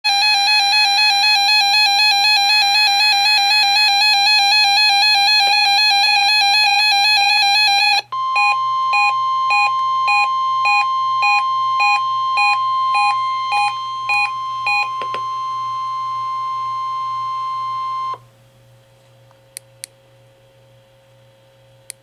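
NOAA weather radios sounding an alert: fast pulsing alarm beeps, about four a second, for the first eight seconds, then the National Weather Service's steady warning alarm tone with another radio's beeps repeating over it. The tone cuts off suddenly a little past the middle, leaving a faint hum and a couple of clicks.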